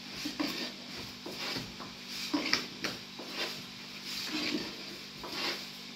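A thin wooden rolling pin rolling and knocking on a round wooden board as flatbread dough is rolled out, along with hands working dough in a metal basin. The result is irregular soft knocks and rubbing over a faint steady hum.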